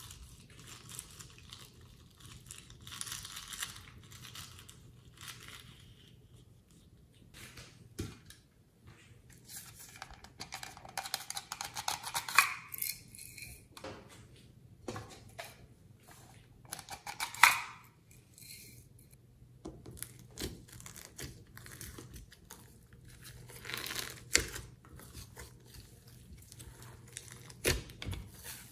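Hands handling slime ingredients over a glass bowl as glitter is squeezed out of a cut balloon onto glossy slime. Bouts of rustling and crinkling come with a few sharp taps, the loudest tap just past the middle.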